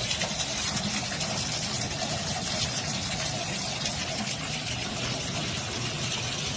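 Water running steadily from a bathtub spout and splashing into the tub and onto a cat standing under the stream.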